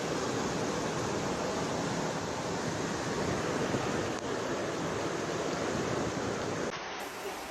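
Floodwater rushing, a steady, even noise that shifts abruptly to a quieter hiss near the end.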